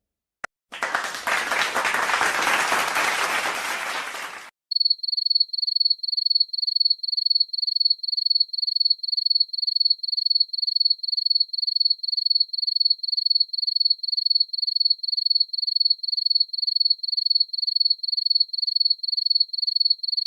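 About four seconds of applause, cut off sharply. Then a high-pitched electronic beep repeats evenly, about two and a half beeps a second, like an alarm or timer.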